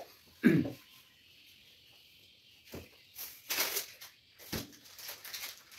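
A short vocal sound about half a second in, then scattered faint rustles and knocks from a person moving about off-camera, fetching something.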